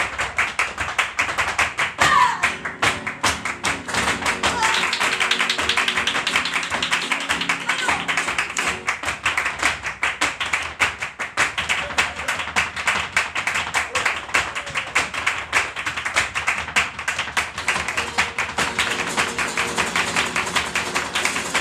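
Flamenco music: dancers' fast heel-and-toe footwork (zapateado) striking a wooden stage, with handclapping (palmas) and flamenco guitar accompanying.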